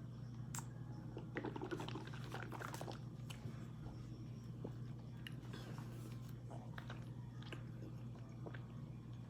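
A person chewing mouthfuls of raw corn starch: irregular crunches and small clicks, over a steady low hum.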